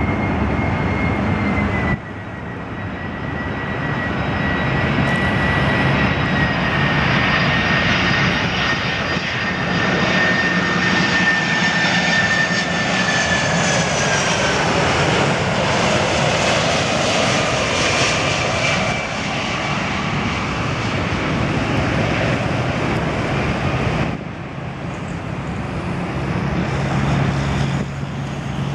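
Jet engine noise from a Boeing 747-400 freighter's four turbofans on final approach: a loud, steady rush with a high whine that slowly drops in pitch about halfway through as the jet passes. Near the end the engine noise is quieter and lower as the jet touches down on the runway.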